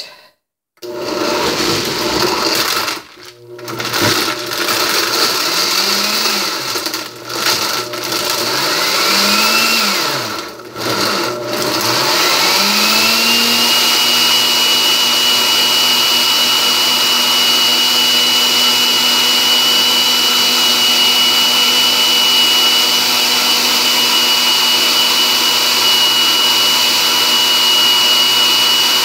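Oster dual-action blender on its frozen-drink program, blending ice, fruit and water in the to-go cup. The motor starts about a second in and runs in short pulses with brief stops, its pitch rising as each pulse gets going. About twelve seconds in it settles into a steady run with a high whine.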